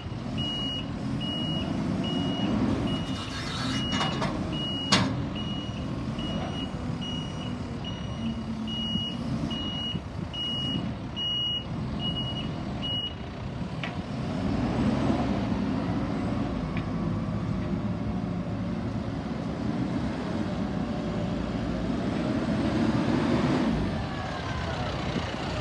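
John Deere 210 skiploader's diesel engine running while its reversing alarm beeps a little more than once a second; the beeping stops about halfway. There is one sharp clank about five seconds in, and later the engine runs louder twice.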